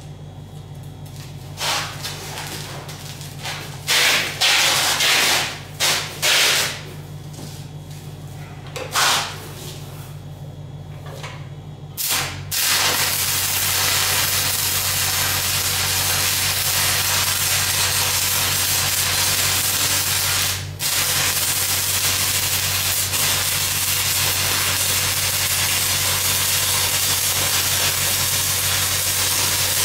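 Stick welding arc on steel pipe with cellulosic 6010/8010 electrodes, run downhill: after several short crackling bursts as the arc is struck, it settles into a continuous loud crackling hiss about 12 seconds in, breaking off once briefly near 21 seconds. A steady low hum runs underneath, the engine of the 1958 Lincoln SA-200 welding machine.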